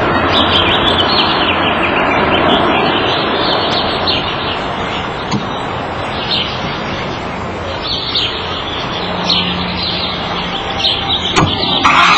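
Outdoor ambience of birds chirping over a steady background hiss, with a car door shutting near the end.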